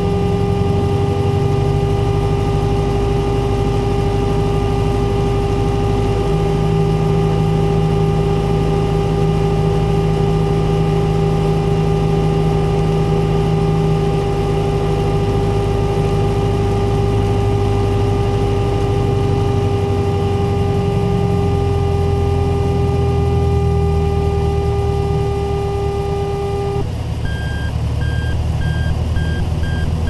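Light aircraft's audio airspeed-cue tone sounding over the steady drone of the engine and propeller: a steady low tone holds until near the end, then switches to a distinctly higher beeping tone, the 'slow' tone that warns of low airspeed.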